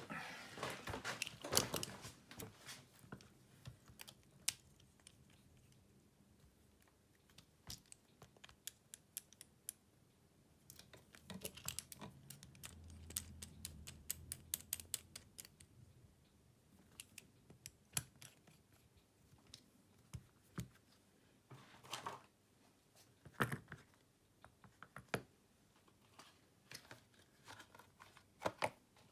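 Small tools and smartphone parts handled on a work surface during a screen replacement: faint, irregular clicks and taps, bunched near the start, around the middle and again near the end.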